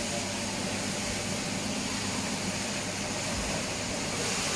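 Steady machine noise in a car paint workshop: an even hiss with a low hum underneath.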